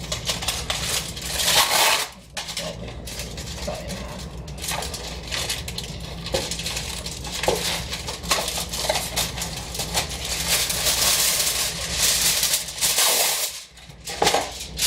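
Aluminium foil being pulled from the roll, torn and crinkled to line a metal baking pan, with crackling rustles and the odd clink of the pan.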